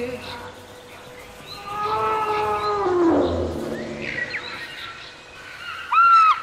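Wild animal calls as the music ends. A long pitched call slides down in pitch about three seconds in, and short, sharp calls that rise and fall follow near the end.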